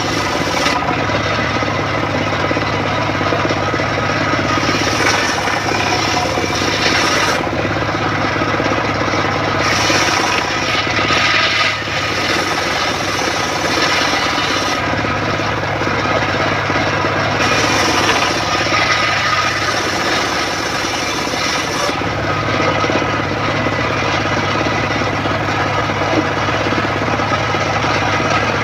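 Homemade circular saw bench running steadily while boards are ripped through the blade. Several times the harsher sound of the blade cutting wood swells over the steady hum of the machine, then eases off between passes.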